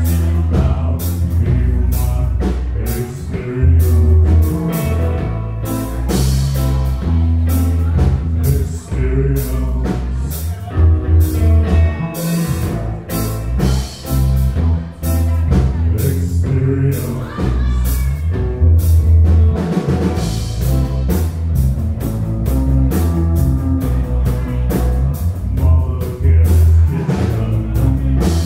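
Live rock band playing: electric guitar, electric bass and drum kit, with a singing voice at times. The bass is strong and steady under frequent drum and cymbal hits.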